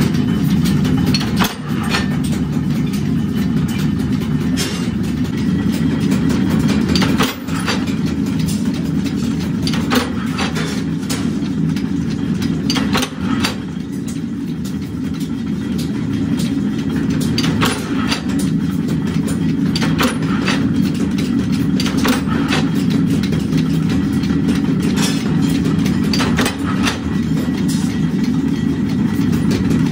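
Flywheel-driven mechanical power press running with a steady low hum, its ram coming down on steel with a sharp clank every one to two seconds as pieces are fed in and punched.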